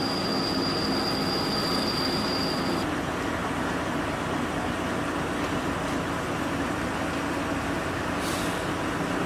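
Heavy diesel machinery running steadily. A steady high-pitched squeal sounds over it and cuts off suddenly about three seconds in.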